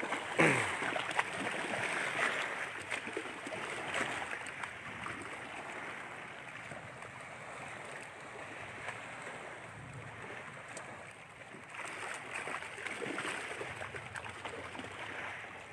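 Steady rushing of rough lake waves washing against the shore, the water choppy and growing stronger. About half a second in, a short sound falls sharply in pitch.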